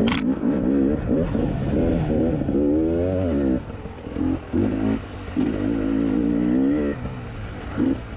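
2020 KTM 300 XC TPI single-cylinder two-stroke engine revving in bursts on and off the throttle, the revs rising and falling several times with short dips between. A sharp knock right at the start.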